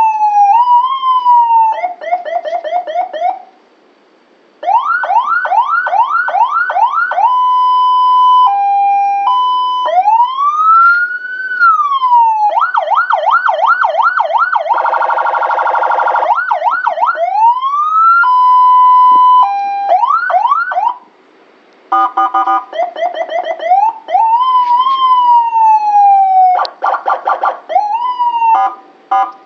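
Electronic vehicle siren cycling through its tones: a fast yelp of quick repeated sweeps, a slow rising and falling wail, a two-note hi-lo, and a brief harsh horn-like blast about halfway through, with two short pauses as it switches patterns.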